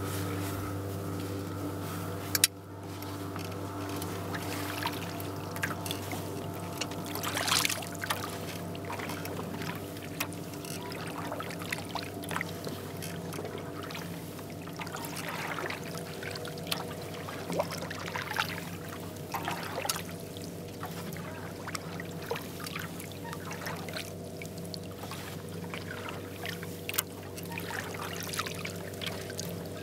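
Kayak paddle strokes: the double-bladed paddle dipping, splashing and dripping water beside the hull at an unhurried pace, over a steady low hum. A single sharp knock comes about two seconds in.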